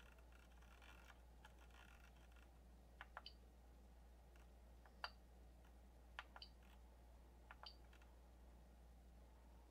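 Faint clicks of the Prusa MK3's rotary control knob as it is turned and pressed through the LCD menu, mostly in quick pairs a second or two apart.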